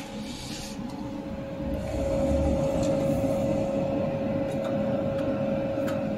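Jewelry laser welding machine running with a steady hum that carries one held tone, growing louder about two seconds in, with a few faint ticks.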